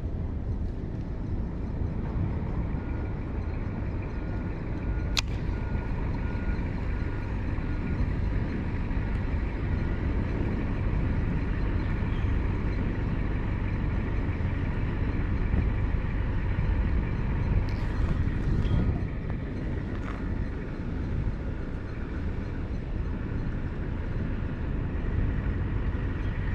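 Steady low outdoor rumble with no clear rhythm, and one sharp click about five seconds in.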